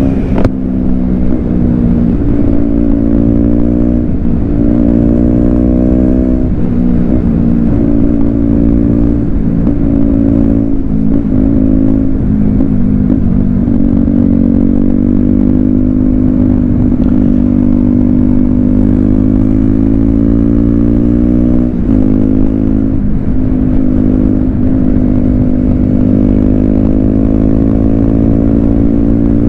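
KTM Duke 125's single-cylinder four-stroke engine running under way, its pitch climbing and dropping several times with the throttle. There is a sharp click about half a second in.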